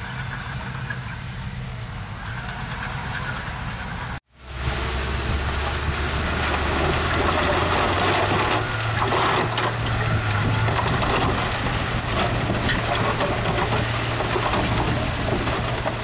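Diesel engine of heavy construction machinery running steadily, with a busy clatter of knocks and rattles over the hum. The sound cuts out for a moment about four seconds in, then comes back louder.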